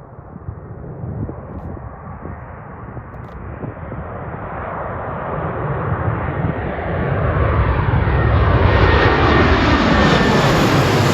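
Airliner passing close by, its engine noise building from faint to loud over several seconds and peaking near the end, with a whine showing through at its loudest.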